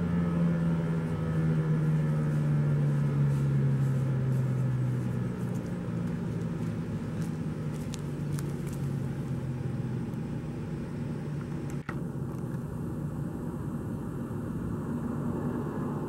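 Federal Signal Equinox outdoor warning siren winding down at the end of its test: a low, falling tone that fades out over about ten seconds. It leaves a steady outdoor rumble.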